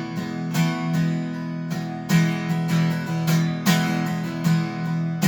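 Acoustic guitar strumming chords, about two strokes a second.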